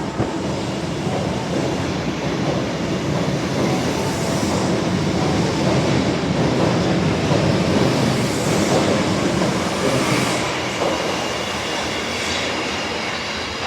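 Osaka Metro Tanimachi Line 22 series subway train running through the station without stopping: a steady rumble and wheel clatter over the rail joints, a little louder midway and easing off near the end.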